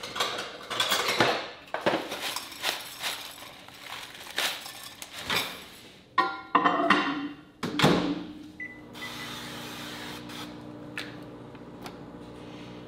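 Kitchen handling sounds, with knocks and clicks of dishes and a cupboard or appliance door. About eight seconds in, an over-the-range microwave gives a short beep and starts running with a steady hum.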